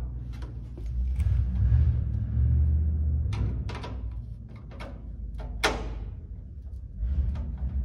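Screwdriver and metal headlight-mounting parts clicking and tapping as the headlight is screwed into place, with one sharper click about five and a half seconds in. A low rumble comes and goes underneath.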